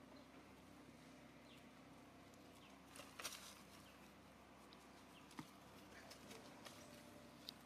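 Near silence: faint outdoor background with a few short, faint chirps and a handful of soft clicks, the loudest cluster about three seconds in.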